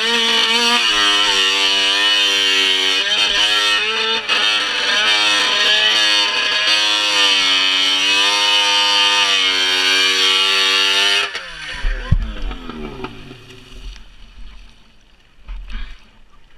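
Ski-Doo snowmobile engine running hard, its pitch rising and falling with the throttle as the sled crosses ice and open water. About 11 seconds in it cuts off suddenly and winds down as the sled breaks through the ice and sinks, with low thumps of ice and water.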